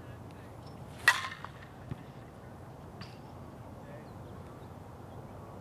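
A softball bat hitting a pitched softball: one sharp, loud crack about a second in with a brief ring after it, and a smaller knock just under a second later.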